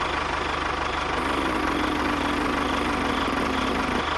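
A small engine running steadily at idle, with a faint extra hum that comes in about a second in.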